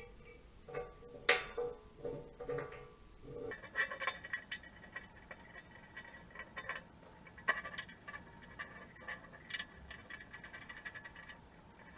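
Music with a plucked, percussive beat for about the first three seconds. After that, scattered light metallic clicks and knocks as a steel crossbar is fitted to the treadmill's uprights and its bolts are started by hand.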